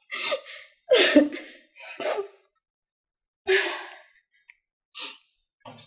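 A woman's distressed, breathy sighs and sobbing gasps, about six short bursts separated by pauses.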